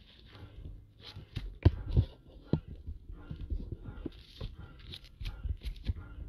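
Irregular handling noise close to the microphone, with knocks, clicks and rustling as the camera is adjusted. The loudest are two sharp knocks about two seconds in.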